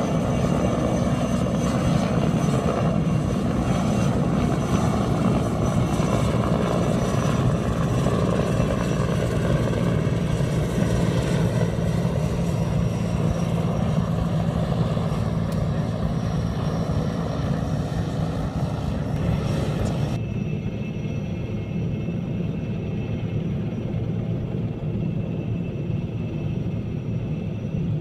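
Sikorsky S-64 Skycrane heavy-lift helicopter's rotors and turbine engines running steadily as it hovers with a transmission-tower section slung beneath it. Heard from a vehicle; about twenty seconds in the sound turns suddenly duller.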